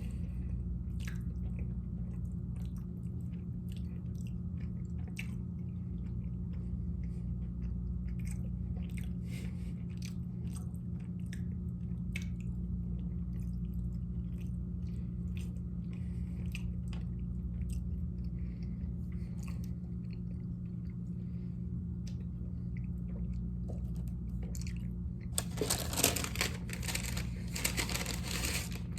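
Close-up chewing of a pasta-and-meat meal, with many small mouth and bite clicks over a steady low hum. Near the end comes a few seconds of louder crunching noise.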